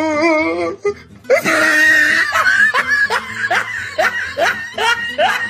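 Background music with a person laughing over it, a string of short rising laughs in the second half.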